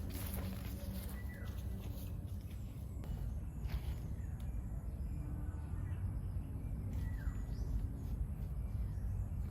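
Rural outdoor ambience with a steady low background noise; a bird gives a short falling chirp twice, about a second in and near the end.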